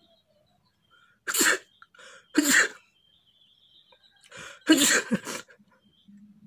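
A man sneezing three times into his hand, the second about a second after the first and the third about two seconds later.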